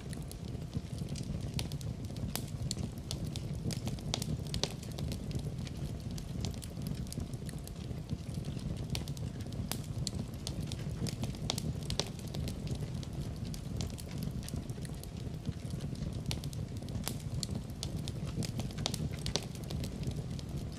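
Wood fire crackling in a fireplace: irregular sharp pops and snaps over a steady low rumble of the burning fire.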